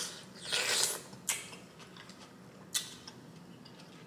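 Close-miked eating mouth sounds: a wet sucking of butter sauce off the fingers in the first second, then two sharp lip smacks, one about a second in and one near three seconds.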